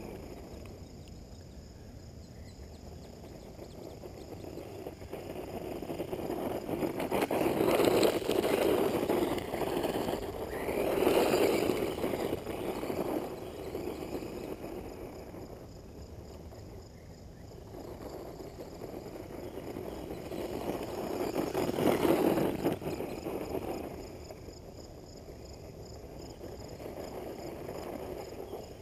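A 1/14-scale brushless 4x4 RC monster truck running on a loose gravel track: its electric motor and its tyres on the gravel swell louder three times as it passes close by, then fade as it drives away.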